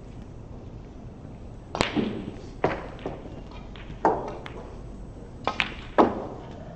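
Sharp clacks of snooker balls striking one another, seven in all and unevenly spaced, each with a short ring; the loudest comes near the end.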